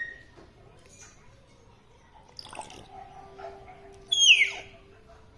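Pet parrot giving a short squawk that falls in pitch about four seconds in, after a brief rustle a second and a half earlier, with a faint steady tone running underneath.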